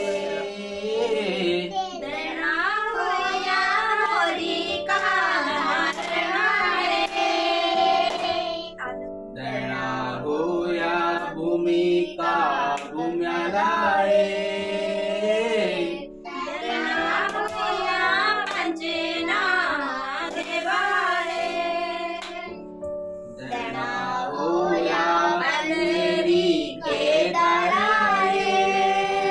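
Women and children singing a Hindu devotional bhajan together, in sung phrases with short pauses between them.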